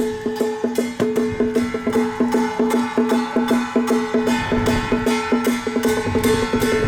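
Traditional temple ceremonial music: quick, even wooden percussion strikes over steady held tones.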